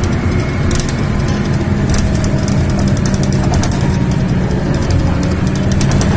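Steady low rumble of a moving road vehicle heard from inside, with many light, quick rattles.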